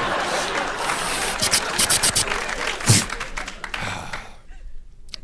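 Studio audience applause that fades out about four seconds in. Over it come sharp clicks and a loud thud about three seconds in.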